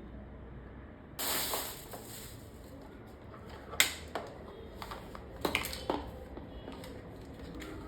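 Unboxing handling noises: a short rushing rustle about a second in, then a few sharp clicks and taps of plastic and packaging being handled.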